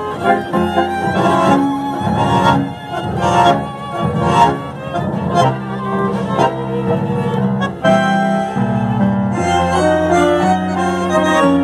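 A tango sextet playing live: bowed violins carry the melody over bandoneón and double bass. The first half has sharply accented beats, then longer held notes from about halfway through.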